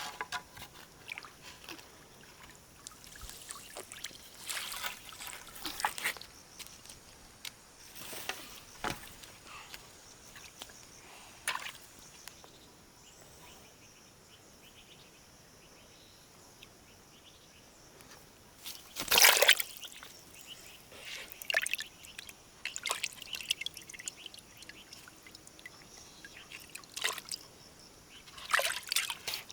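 Water sloshing and trickling in irregular splashes, the loudest about two-thirds of the way through.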